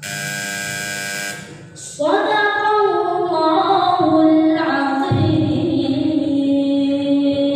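A steady buzzing electronic tone that stops after about a second and a half, then a woman's voice chanting Quran recitation from memory, drawing out long held, ornamented notes.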